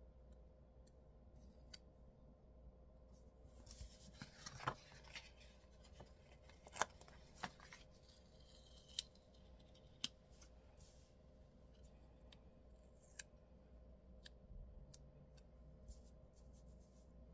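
Faint handling of disc-bound planner pages and stickers: a short rustle of paper about four seconds in, then scattered sharp clicks and taps, the loudest a little before halfway.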